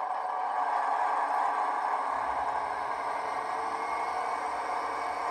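ESU sound decoder in a Piko H0 model of a class 612 Regio-Swinger diesel railcar, playing its diesel engine running sound through the model's small speaker as the model rolls slowly along the track. A deeper hum joins in about two seconds in.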